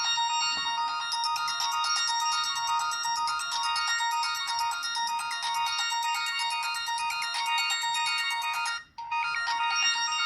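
Philips 760 mobile phone playing a ringtone: a synthesized melody of quick stepped notes, several sounding at once. It breaks off for a moment near the end, then starts again.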